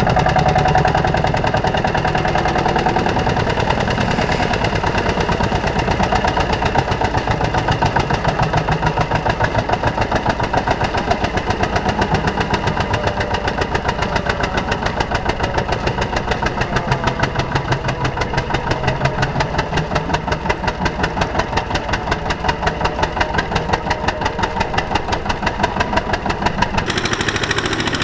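Single-cylinder diesel engine of a two-wheel walking tractor chugging steadily under load as it hauls a loaded trailer through deep mud, with a rapid, even beat.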